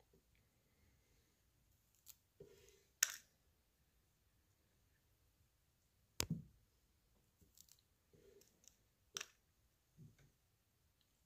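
Near silence broken by a handful of short, sharp clicks and taps. The loudest is a click about three seconds in, and a click with a dull knock comes about six seconds in.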